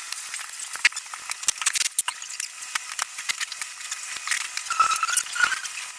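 Soldering work on the wires of an ABS control module's circuit board: irregular small clicks and crackles, with a faint sizzle.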